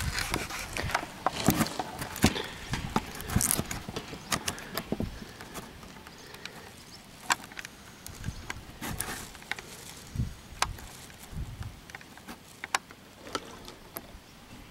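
Handling noise: rustling with scattered light metallic clicks and clinks, busiest in the first few seconds. No gunshots.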